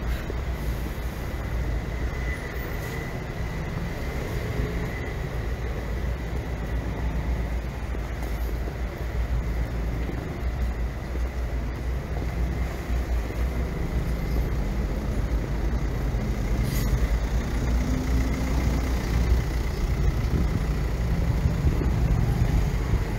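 City street ambience: a steady low rumble of passing traffic, with a faint thin whine held throughout.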